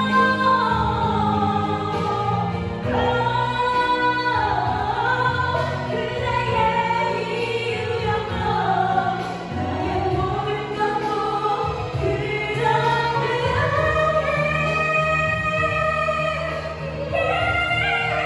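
Female vocalists singing a Korean pop ballad into handheld microphones over an instrumental accompaniment, with long sustained phrases.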